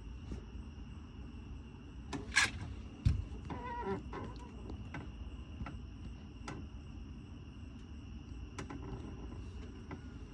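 Steady high-pitched trilling of night insects, with a few faint clicks and knocks, the loudest about two and three seconds in, and a short pitched sound just after.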